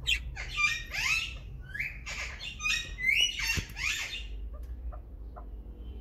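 A run of harsh parrot squawks, about eight calls in the first four seconds, some sliding up in pitch and some down, then quieter.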